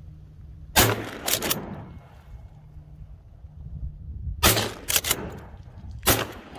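Shotgun shots at flying ducks. One sharp report comes about a second in, followed by a quieter one. Then three or four come in quick succession from about four and a half seconds in.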